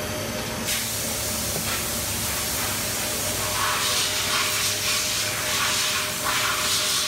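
Milltronics RH-20 CNC vertical mill running, with a steady hum under a spray hiss that starts suddenly about a second in. The hiss turns rougher and louder about halfway through.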